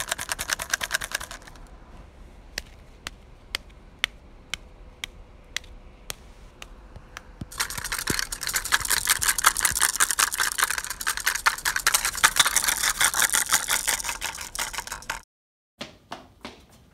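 Small mechanical clicking: a fast ratcheting rattle for the first second or so, then single ticks about twice a second, like a clock ticking. About seven seconds in, a louder, longer run of fast rattling clicks starts and stops suddenly; a few knocks near the end.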